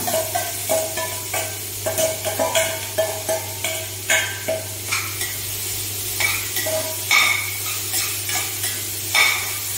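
Hot oil sizzling in a stainless steel kadai as chopped onions are tipped in and fried, with a steel spatula scraping and clinking against the pan in repeated strokes as they are stirred.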